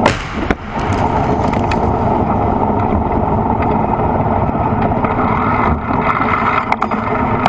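A T-72 tank's 125 mm main gun fires once with a sharp blast right at the start, followed by the tank's engine running loudly and steadily, with scattered knocks and clatter.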